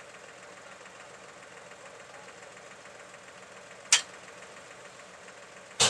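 Tractor diesel engine idling steadily, with two sharp knocks about two seconds apart, the second near the end.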